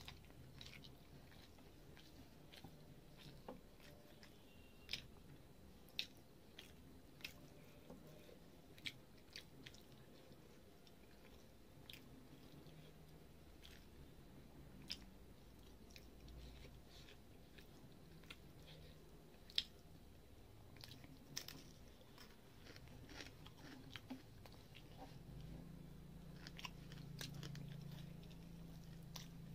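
Quiet close-up eating sounds of rice and fried fish being chewed, with irregular sharp crunches and mouth clicks every second or so. The loudest crunch comes about two-thirds of the way through.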